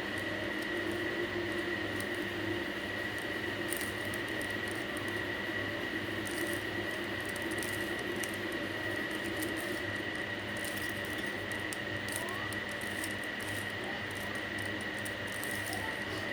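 Plastic Rubik's cube layers being turned in quick runs of light clicks and rattles while the white cross is built, over a steady hiss with a faint high whine.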